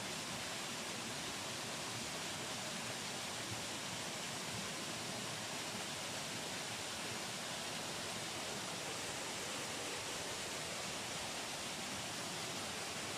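Steady, even rushing of flowing water at the water mill, a constant hiss with no separate knocks or splashes.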